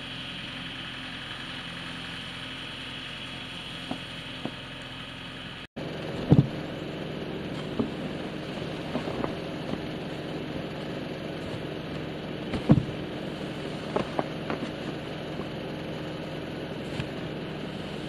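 Skid steer engine running steadily. About six seconds in there is a sudden cut to a snow shovel striking and scraping a corrugated metal roof: scattered knocks, two of them loud, over a continuing steady engine hum.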